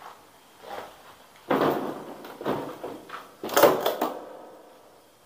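Several knocks and rustles with short gaps between them, the loudest about a second and a half in and another about three and a half seconds in, each fading quickly.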